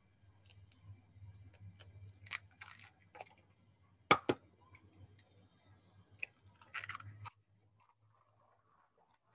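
Eggs being cracked into a plastic cup: sharp taps and crackly shell crunches, with two strong cracks close together about four seconds in, over a low steady hum. All sound cuts out about seven seconds in.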